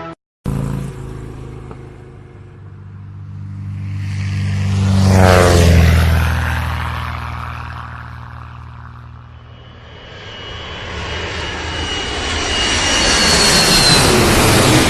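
An aircraft flies past. Its engine grows louder, drops sharply in pitch as it passes about five seconds in, then fades. A second engine sound with a high whine swells toward the end.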